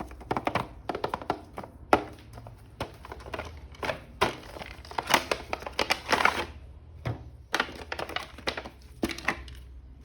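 Plastic packaging of an action figure being handled and opened: crinkling with many sharp clicks and taps, the crinkling heaviest in the middle.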